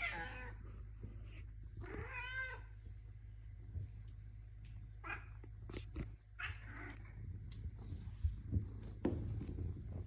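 Melanistic Bengal cat meowing: one call right at the start and a longer, wavering call about two seconds in, followed by a few shorter, softer sounds.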